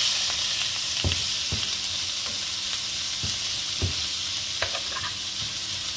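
Diced sausage, onion and capsicum sizzling in a frying pan with a steady hiss, while a slotted metal spatula stirs them, scraping and knocking against the pan several times.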